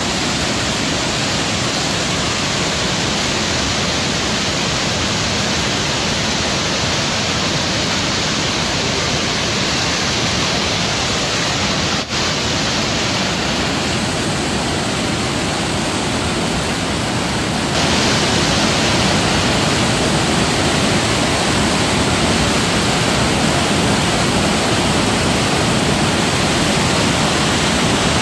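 River floodwater rushing over a stepped weir and churning into white water: a steady, loud rush of falling water. It drops out for an instant about twelve seconds in and grows slightly louder after about eighteen seconds.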